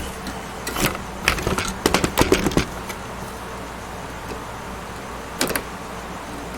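Handling noise of a SATA cable connector being twisted and pushed onto a hard drive inside a desktop PC case: a quick run of small plastic and metal clicks and knocks in the first couple of seconds, then a brief pair more about five and a half seconds in, over a low steady hum.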